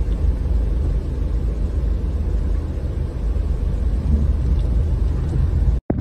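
Snowstorm ambience over a highway: a steady low rumble of wind and road traffic, which cuts off suddenly near the end.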